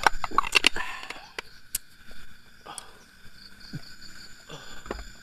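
Steady chirring of night insects such as crickets. Over it come sharp clicks and knocks of small objects being handled, clustered in the first second, then a few scattered clicks.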